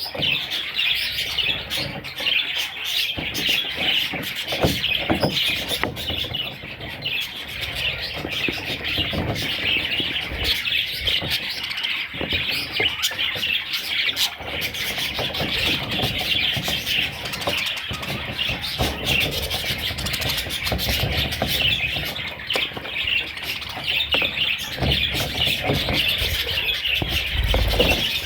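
Budgerigars chattering, a dense warble of many overlapping short chirps that never lets up, with a few low thumps, the strongest near the end.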